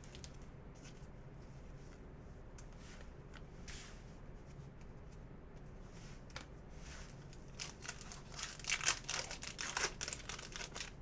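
A baseball card pack wrapper being torn open and crinkled: a run of crackling rustles over the last few seconds, after scattered faint ticks of cards being handled.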